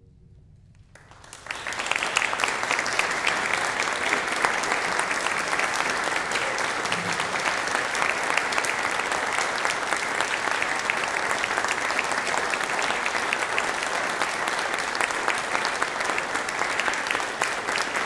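Audience applauding, beginning after about a second and a half of quiet and then going on as steady, dense clapping.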